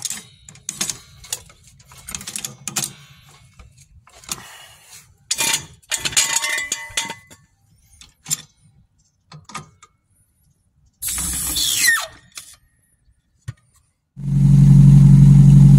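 Floor jack and steel jack stands being worked to lower the car: scattered metal clicks, clanks and ratcheting. About 14 seconds in, the 1994-97 Mazda Miata's 1.8-litre four-cylinder engine cuts in, running loudly and steadily.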